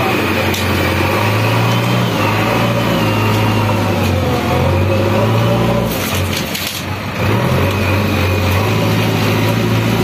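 JCB backhoe loader's diesel engine running steadily, with a brief dip in level and a short burst of high, hissing noise about two-thirds of the way through.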